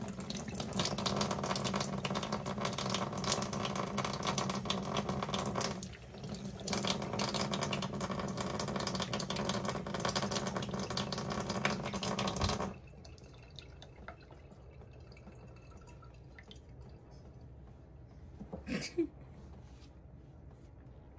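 Water running from a sink faucet and splashing over hands; the flow eases briefly about six seconds in and cuts off suddenly a little past halfway, as the tap is shut off.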